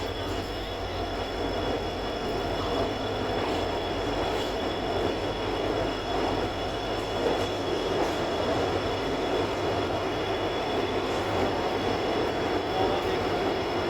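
Passenger train running along the track, heard from on board: a steady rumble of wheels on rail with a thin, steady high-pitched whine over it.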